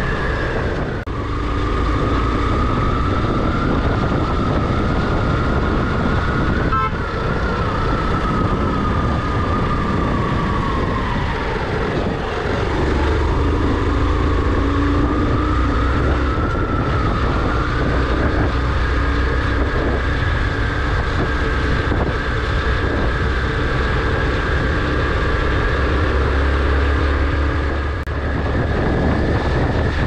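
A vehicle engine running steadily under way on the road. Its whine drops in pitch about ten seconds in and climbs back up a few seconds later as the revs fall and rise.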